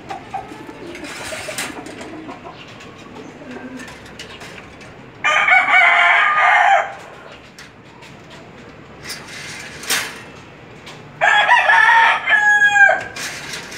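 A rooster crowing twice, each crow about a second and a half long, the second ending with a falling tail. Softer low pigeon cooing comes in the first few seconds, and there is a single sharp click shortly before the second crow.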